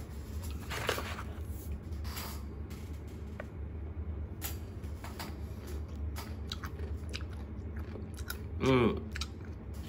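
Biting into and chewing a crunchy drumstick biscuit stick, with the loudest crunches about one and two seconds in and quieter chewing after. A short voice sound comes near the end.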